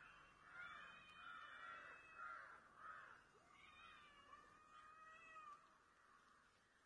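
Domestic cats yowling at each other in a fighting standoff: faint, long, wavering calls that rise and fall in pitch, coming in several bouts.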